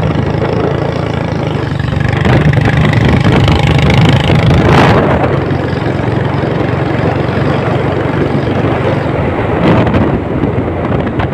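Royal Enfield Bullet single-cylinder engine running steadily under way, with wind noise on the microphone; it gets louder for a few seconds in the middle and there are two short surges of noise, one about halfway and one near the end.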